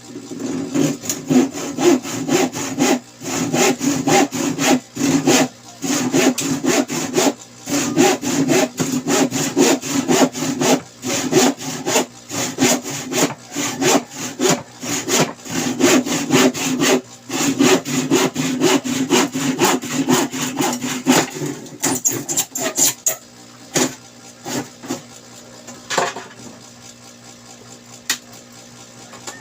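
Rapid back-and-forth strokes of a hand tool scraping or sawing against a workpiece, several strokes a second. The strokes stop about three quarters of the way through, leaving only faint scraping.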